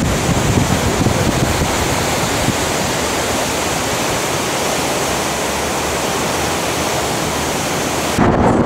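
Loud, steady rushing hiss with no tones, like wind noise on a microphone; it changes near the end.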